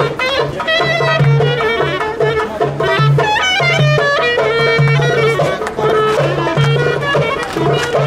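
Folk band music: a clarinet playing a fast melody over a steady pulsing bass beat.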